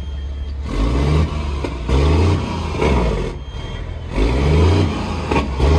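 Kenworth W900's Caterpillar diesel idling, then revved in several quick throttle blips, each rising and dropping back, heard from inside the truck's cab.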